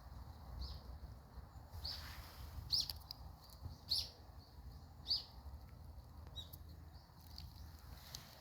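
A small bird giving short, sharp chirps about once a second, over a low steady rumble of wind or handling noise.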